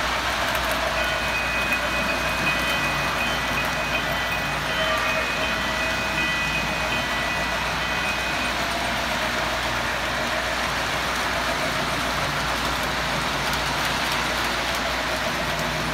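Three-rail model passenger train running around the track, a steady rolling whir of wheels and motor. A thin steady high tone sounds over it from about a second in for roughly seven seconds.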